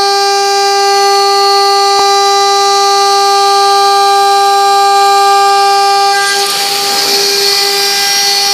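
CNC router spindle running at speed with a steady whine rich in overtones. A short click comes about two seconds in, and a rushing hiss joins about six seconds in.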